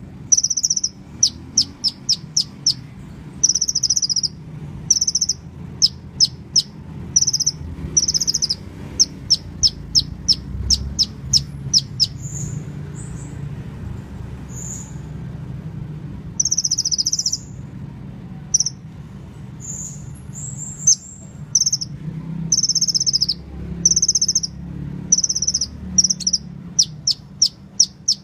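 Sunbird singing: quick runs of short, high chirps, several a second, broken by pauses and a few longer slurred notes, over a faint low hum.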